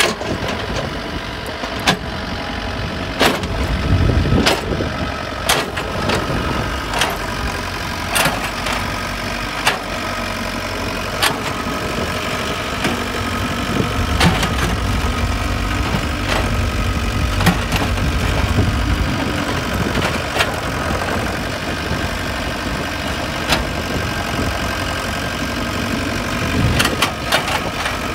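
IHI mini excavator's diesel engine running steadily under working load, with frequent sharp clanks and knocks from the bucket and steel tracks as it scrapes and piles soil.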